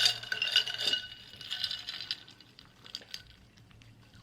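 Tableware clinking, a fork or spoon against a plate or glass: a sharp clink that keeps ringing for about two seconds, with several lighter taps over it, then a few fainter taps.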